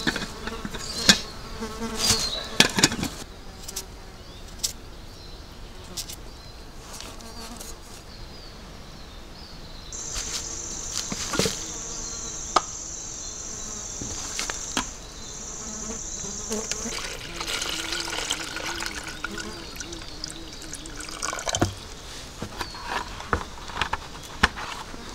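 Flies and other insects buzzing, with clinks and knocks of camp cookware being handled in the first few seconds and scattered knocks later.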